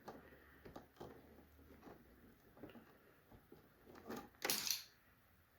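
Faint clicks and rustling of a fan cable being handled and freed from its cable ties, with a louder scratchy rustle about four seconds in.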